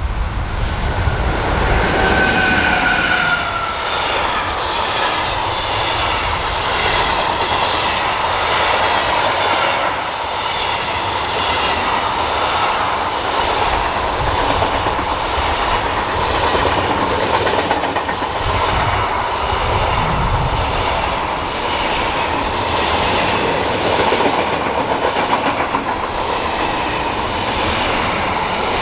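A long train passing at speed on a mainline, its wheels clacking at a steady, regular rhythm over the rail joints. A brief falling whine is heard about two seconds in.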